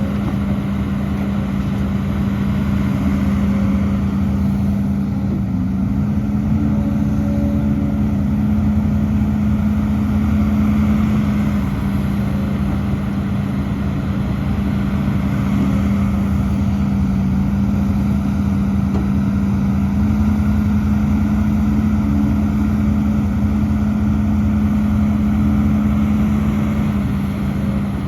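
Diesel engine of a Hidromek HMK230LC crawler excavator running at working revs, a steady drone whose pitch shifts slightly a few times as the engine takes up and sheds hydraulic load.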